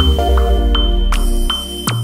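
Electronic background music: held synth notes over a deep bass, with a high ping tone sounding over them and a short sharp hit near the end.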